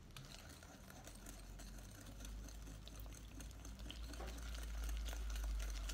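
Wire whisk stirring beaten egg into creamed butter and sugar in a glass bowl: faint quick scraping and patter, with a low rumble building after about two seconds.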